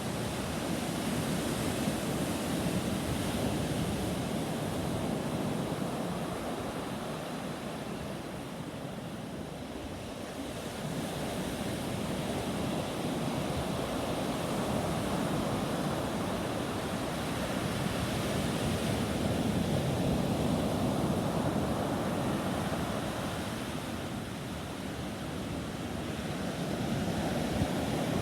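Sea surf on a beach: waves breaking and washing in, a steady rush that swells and eases slowly every several seconds.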